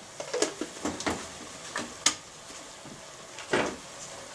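A few sharp clicks and knocks of kitchen containers being handled, the strongest about three and a half seconds in, over a faint sizzle of ground meat in the pot.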